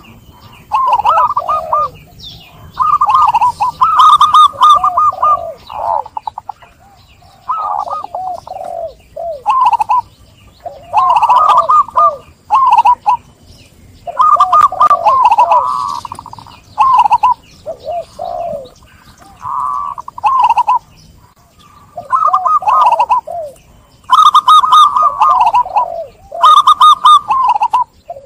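Local zebra doves (perkutut lokal) cooing: repeated coo phrases made of quick, wavering notes, one after another through the whole stretch, with phrases at different pitches overlapping as more than one bird calls.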